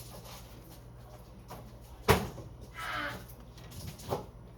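Two knocks: a sharp, loud one about two seconds in and a softer one near the end, with a brief voice between them, over a steady low hum.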